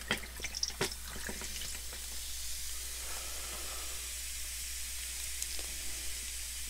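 Diet cream soda poured from a can over ice in a glass. A few sharp crackles and clicks come in the first second or so, then a steady fizzing hiss as the carbonated foam rises and settles.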